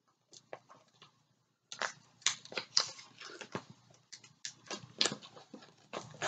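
Paper cover of a diamond painting canvas crackling and crinkling as it is handled and pressed by hand: a few faint crackles, then a quick irregular run of sharp crackles from about two seconds in.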